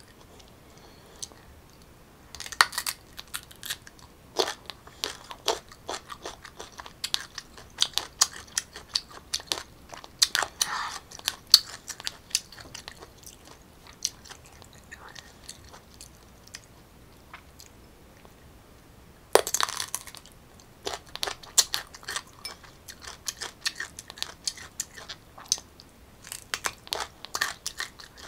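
Crisp crunching and chewing of raw unripe green mango. Quiet at first, then a run of quick crunches, a pause, and a loud crunchy bite about two-thirds of the way through, followed by more chewing.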